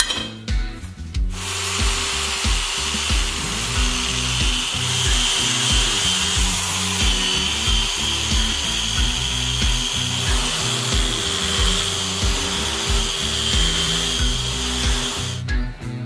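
Handheld grinder with a sanding disc running steadily against a clamped steel latch, sanding and smoothing the metal, with a steady high whine. It starts about a second in and stops just before the end, over background music with a steady beat.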